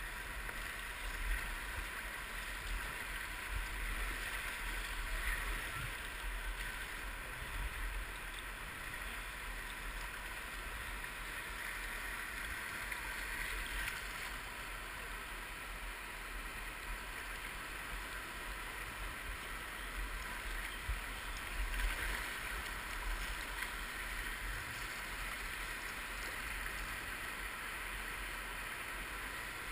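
Steady rush of river rapids with water splashing against a kayak, a few louder splashes scattered through, over a low rumble.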